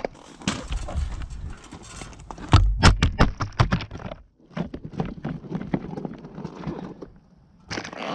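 Boots crunching on coarse crushed-stone gravel, with a cluster of loud knocks and rubbing close to the microphone about two and a half to four seconds in, as the camera is handled and set down.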